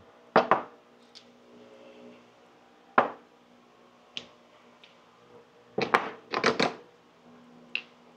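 Steel 1-2-3 blocks being lifted off and set down on a wooden workbench: sharp metal knocks, a double one early, a single one about three seconds in, and a quick run of several near the end, with lighter ticks between.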